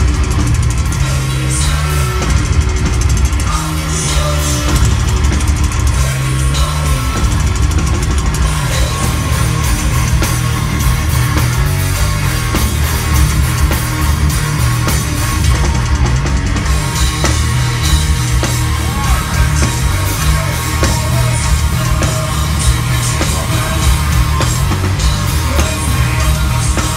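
Heavy metal band playing live through a stadium PA: distorted guitars, bass and drums, loud and dense throughout.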